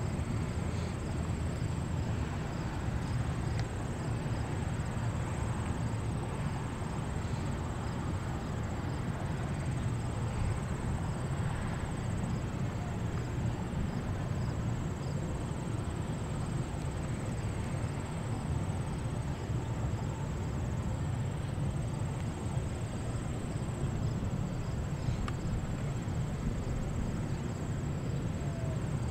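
The B-29 Superfortress's four Wright R-3350 radial engines are heard as a steady low rumble while it taxis in the distance. Insects chirp steadily over it.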